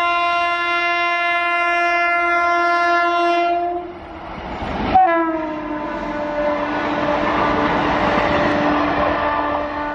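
Indian Railways WAP-7 electric locomotive's air horn sounding a long steady multi-tone blast. About five seconds in, the horn slides down in pitch as the locomotive passes and keeps sounding over the rushing clatter of the coaches going by at speed.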